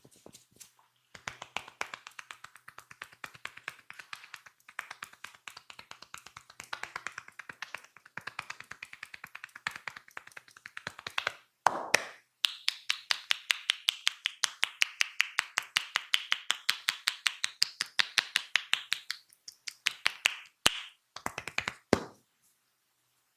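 Percussive massage strokes: hands tapping rapidly and rhythmically on the body, several strikes a second, in long runs. There is a brief break near the middle, and the strikes after it are louder.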